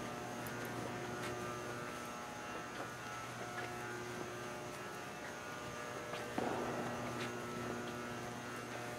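Steady electrical mains hum with a few faint ticks. A soft rushing noise joins about six seconds in.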